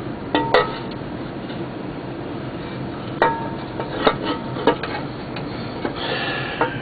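Metal engine parts and tools clinking against each other: several sharp clinks, a few with a short metallic ring.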